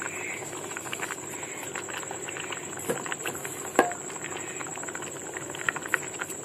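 Curdled milk mixture simmering in a pan, bubbling with a steady scatter of small pops, and one sharper knock a little under four seconds in.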